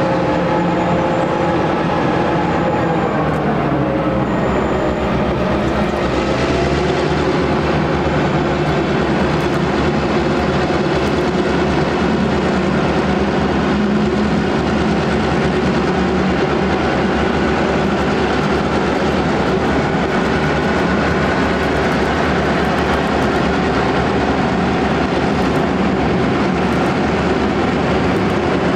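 Diesel locomotives, led by Victorian Railways T-class T342, hauling a train across a steel truss bridge: a steady engine drone with a dense layer of running noise. Part of the engine note drops in pitch a few seconds in.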